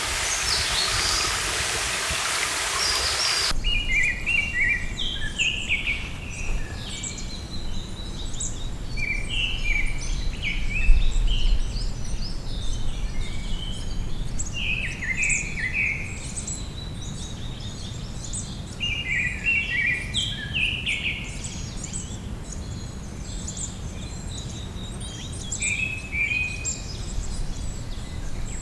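A stream rushes steadily and cuts off abruptly about three and a half seconds in. After that, songbirds sing in the forest, short phrases of chirping notes repeated every few seconds, over a low rumble.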